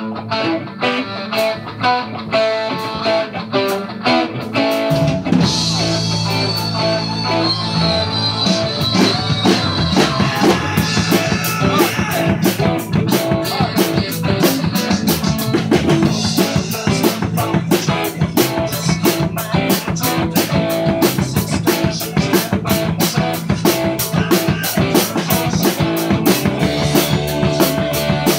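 A live electric guitar and drum kit playing rock together, with regular cymbal strokes under the guitar notes. The sound gets fuller and heavier about five seconds in.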